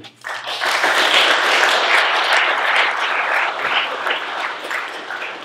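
Audience applauding, starting just after the opening and thinning out toward the end.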